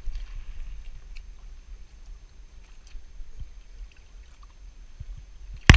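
Wind rumbling on the microphone over water lapping at the rocks, with a few faint clicks. A sudden loud rush of rustling noise starts right at the end.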